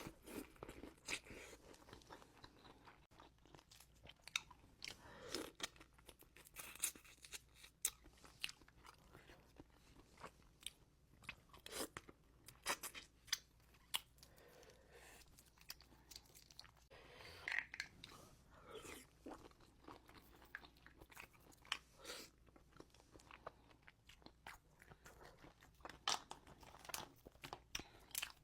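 Close-miked eating of seafood boil: chewing and crunching, heard as irregular short clicks and crunches, a few each second.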